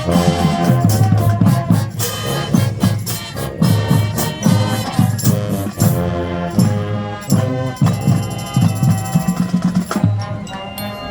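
High school marching band playing, with a steady pulse of deep drum beats under sustained band tones. About six seconds in, the sharp crashing strokes thin out while the beat and held notes carry on.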